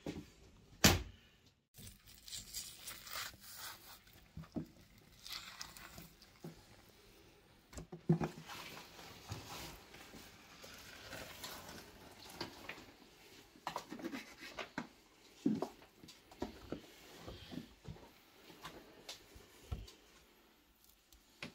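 Fresh pork being cut and handled on a wooden board: knife strokes through fat and skin, wet tearing as hands pull at the meat on the ribs, and irregular handling noises. Sharp knocks stand out about a second in and again near eight seconds.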